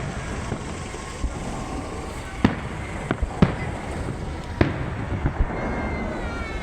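Fireworks display: shells bursting in a run of sharp bangs, four louder ones in the middle, over a steady background hubbub.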